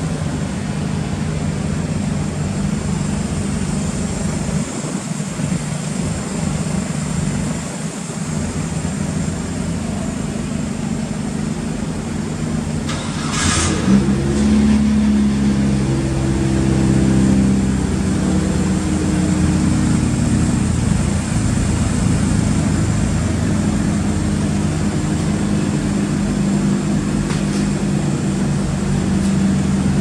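SW20 Toyota MR2's swapped-in turbocharged 3S four-cylinder engine, with a TRUST T67 turbo, idling steadily. About 13 seconds in there is a short hiss, after which the exhaust sound is louder.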